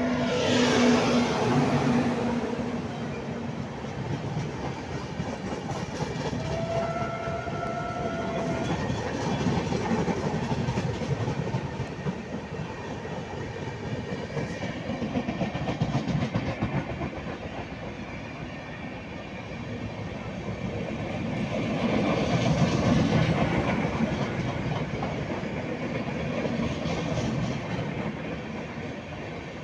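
Indian Railways passenger express passing through a station without stopping: the electric locomotive goes by first, loudest, with a steady hum, and then the coaches roll past with continuous wheel clatter on the rails. A short steady horn note sounds for about two seconds, about seven seconds in.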